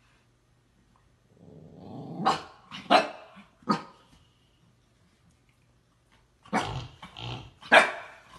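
Young husky-type dog growling, then giving three sharp barks about a second apart; after a pause of a couple of seconds, another quick run of about four barks.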